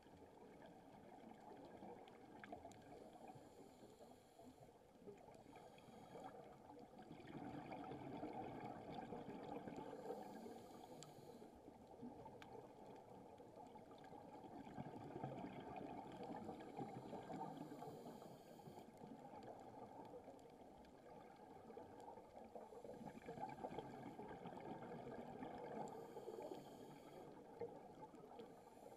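Faint, muffled underwater noise heard through a diving camera housing: a diver's breathing on a scuba regulator, with exhaled bubbles rising and falling in slow waves about every eight seconds.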